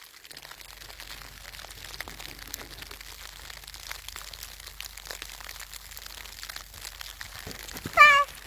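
Faint, dense crunching and crinkling. Near the end comes a short, high-pitched vocal call whose pitch rises and falls.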